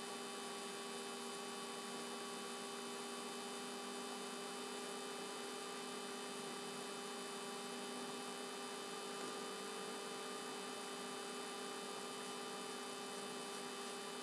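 A steady electrical hum made of several fixed tones over a faint hiss, unchanging throughout; no other sound stands out.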